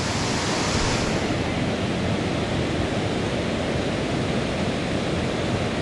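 Water rushing steadily over a small stepped rock waterfall into a pool.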